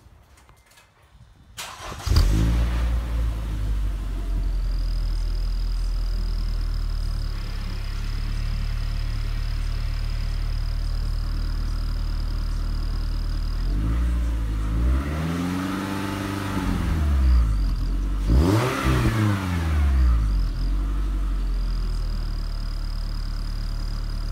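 Scion tC's four-cylinder engine starting up about two seconds in, idling steadily, then revved up and back down twice. A thin high-pitched tone sits over the idle and drops out while it revs. A novelty turbo whistle is fitted in the tailpipe, but no whistle comes through; the owner finds it inaudible.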